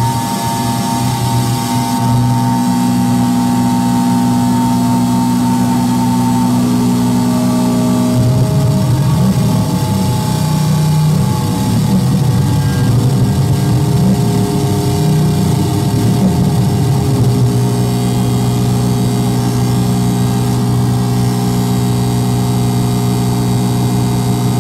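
Live electronic noise music from effects pedals and electronics: a loud, dense drone of held low tones with a few higher ones. About eight seconds in the low tones begin to waver and shift, settling back into a steady drone some ten seconds later.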